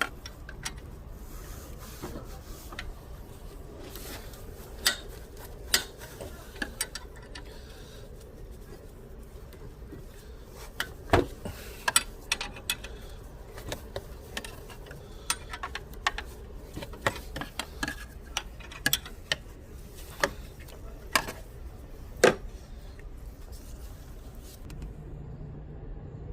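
Irregular sharp metallic clicks and knocks, dozens of them at uneven intervals, over a steady low hum.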